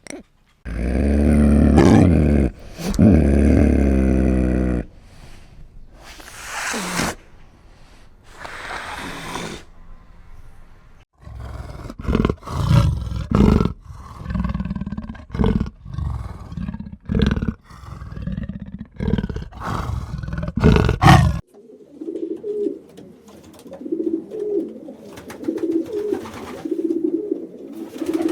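A run of animal calls: a loud, deep roar in the first few seconds, then a series of short rhythmic roaring grunts, and near the end a soft low call repeated evenly many times.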